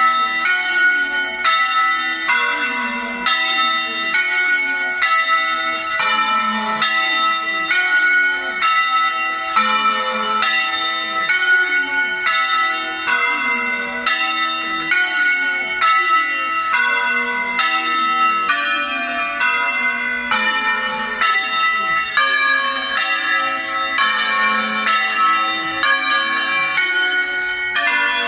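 Ghizzole's six church bells in A-flat, hung in the Veronese style, being rung by hand. Strikes follow one another about twice a second, the bells' tones overlapping and ringing on.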